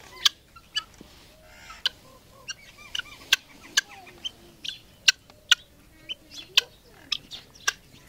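Helmeted guineafowl giving short, sharp clucking calls, about two a second at irregular intervals, while feeding from a hand.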